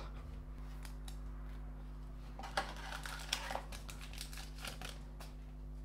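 Trading cards and a pack wrapper being handled: faint crinkling and small clicks, a few of them louder around the middle.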